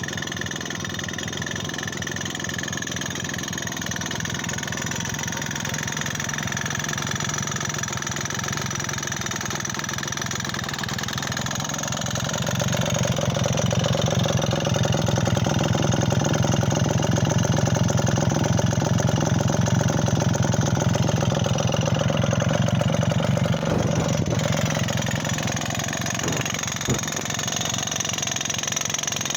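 Sachs 98 cc two-stroke engine of a Wanderer 11AS running with a rattle. About twelve seconds in it grows louder and stays up for roughly twelve seconds, then settles back, with one sharp click near the end.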